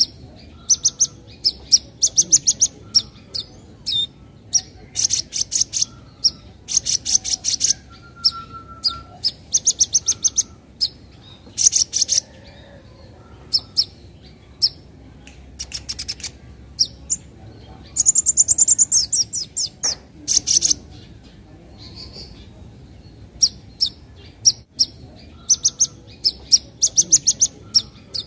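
Sunbird (kolibri ninja) in a cage, calling in repeated short bursts of rapid, high chattering chirps, some runs longer and louder than others.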